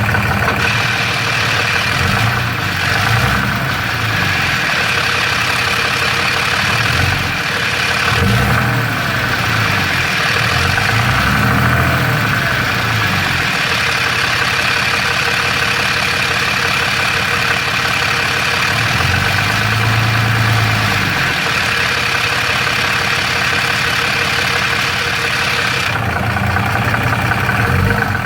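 Ram's 6.7L Cummins inline-six turbodiesel running steadily at idle, with a rattle from the bell housing. The owner suspects a cracked flex plate, though it could be normal triple-disc torque converter noise.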